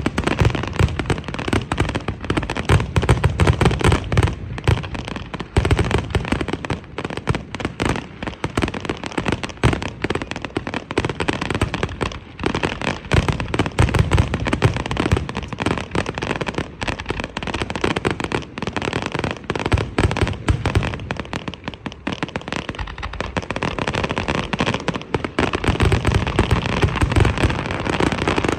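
Many fireworks going off at once: a dense, continuous run of bangs and crackling with no real pauses.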